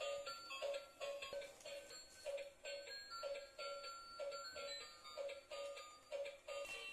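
Battery-powered light-up toy car playing its built-in electronic tune: a faint, tinny beeping melody with a note repeating about three times a second.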